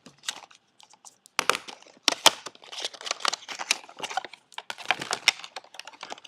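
A small retail box and its plastic packaging being opened and handled by hand: irregular clicks, snaps and crinkles. It is sparse at first and grows busier after about a second and a half.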